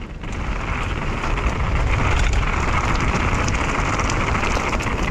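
Mountain bike tyres rolling fast over a loose dirt and gravel trail, with a steady low wind rumble on the microphone and small ticks of grit and gravel.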